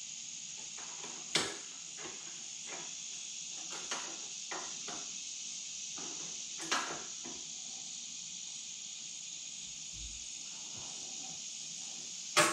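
Scattered clicks and knocks of hands working on wiring and parts at the back of an air-cooled VW engine, with three sharper knocks: about a second in, about midway, and at the end. A steady high hiss runs underneath.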